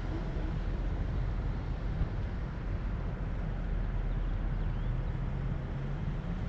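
Car driving: a steady low engine hum and road rumble, the engine note shifting slightly in pitch.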